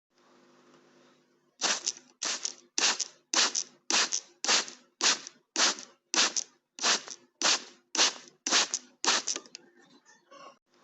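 Spray bottle squirting water in short hissing sprays, about fourteen of them at a steady pace of a little under two a second, followed by a few faint clicks.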